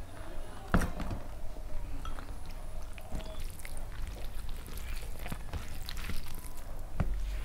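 A glass bowl set down on the table with a sharp clink a little under a second in. Then fingers mix pulao and curry on a steel plate, with soft squishing and scattered small clicks, and another sharp tap near the end.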